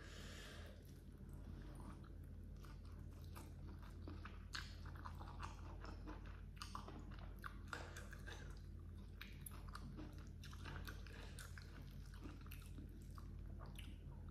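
Close-miked mouth sounds of a person eating rice with baby squid by hand: steady chewing with many small wet clicks and smacks, over a faint steady low hum.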